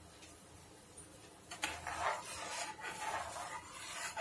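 A ladle stirring and scraping through rice rava in hot water in an aluminium pan, with soft, uneven rubbing starting about a second and a half in and a light knock near the end.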